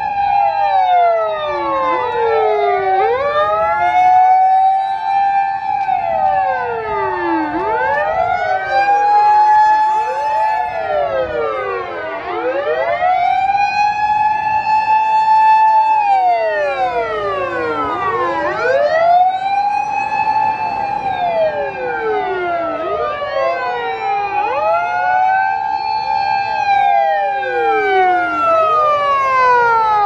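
Sirens of several Japanese fire engines and emergency vehicles in convoy, sounding together out of step. Each rises, holds a long high note for a few seconds, then falls, at slightly different pitches, so the wails overlap and cross continually.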